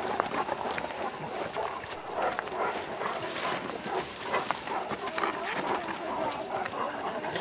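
Several large dogs and people pushing through leafy undergrowth: a continuous rustle and brushing of leaves and stems with scattered snaps and footfalls.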